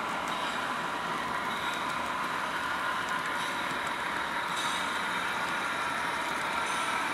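Model train running past, two diesel locomotives hauling boxcars along the track, a steady running noise.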